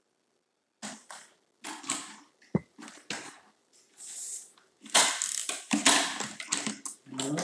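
Cordless mini blind's headrail being pushed and snapped into its metal mounting brackets: irregular clicks, knocks and rattles, with the stacked slats rustling. It starts about a second in and is busiest near the end.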